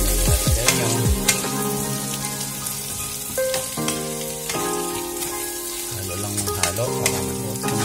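Chicken pieces frying and sizzling in butter in a pan, with occasional scrapes and clicks of a wooden spatula turning them. Background music with held notes plays over it.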